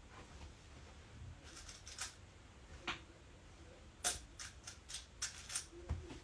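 Trading cards being handled and laid out on a table: scattered sharp clicks and taps, the loudest about four seconds in, followed by a quick run of lighter clicks and a soft thud near the end.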